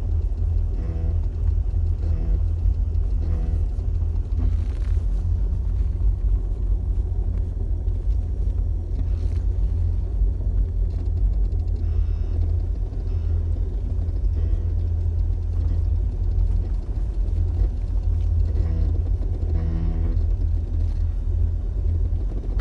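Jeep Cherokee XJ driving downhill with a steady low rumble of road and drivetrain in the cabin, as the brakes are tapped and give short pitched noises a few times near the start and again near the end: the brake noise the owner is trying to pin down.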